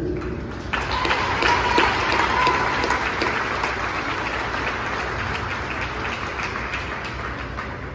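Crowd applauding in a large gymnasium, breaking out about a second in and slowly dying away.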